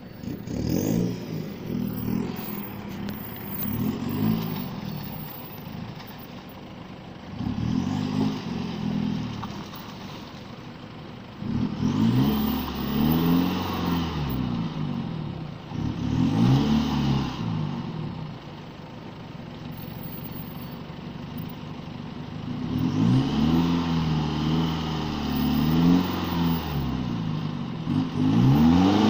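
Pickup truck engine revving in about seven repeated bursts, each rising and falling in pitch with lower idling between, as the truck tries to drive out of slippery mud where it is nearly stuck.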